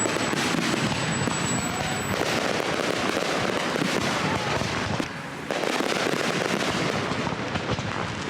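Fireworks going off in a dense, continuous barrage of rapid bangs and crackles, dropping away briefly about five seconds in before carrying on.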